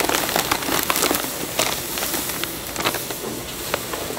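Cheese coin bread cooking in hot metal molds: a steady sizzling hiss with frequent sharp clicks and clinks of metal.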